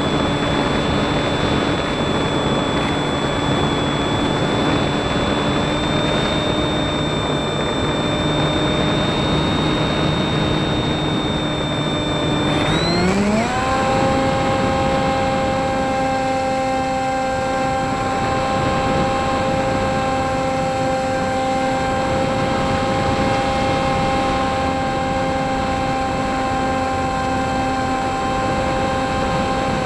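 Radio-controlled plane's motor and propeller whining steadily, heard from a camera on the airframe with airflow noise over it. About 13 seconds in the pitch rises quickly as the throttle goes up, then holds at the higher pitch.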